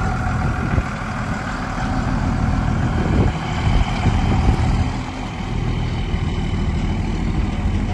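A pickup truck's engine running steadily at low speed as the truck drives past towing a gooseneck flatbed trailer. The sound gets louder and rougher around three to four and a half seconds in.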